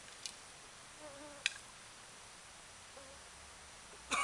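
A flying insect buzzes briefly past the microphone about a second in, over a faint forest background. Two small sharp clicks from gear being handled come through, and a short, louder pitched sound comes near the end.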